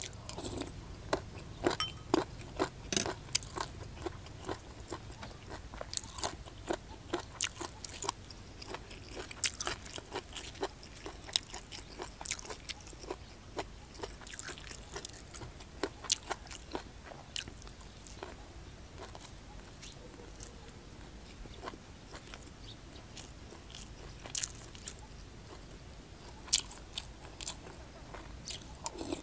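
Close-up chewing of whole hed phao puffball mushrooms from a curry: irregular crunches as the firm mushroom skins are bitten through, a few every second or so.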